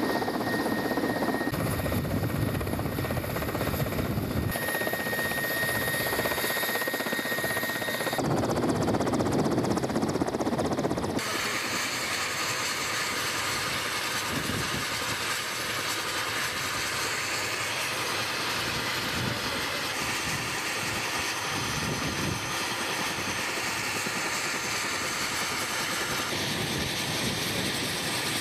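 A helicopter running: a steady engine-and-rotor noise with a faint whine. It changes abruptly at several cuts, about 2, 4.5, 8 and 11 seconds in.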